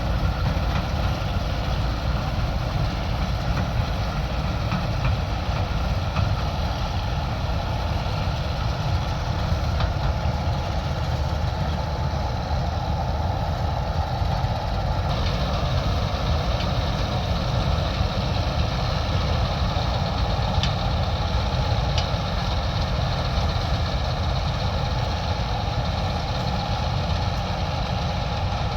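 Combine harvester's diesel engine and machinery running steadily, with a slight change in tone about halfway through.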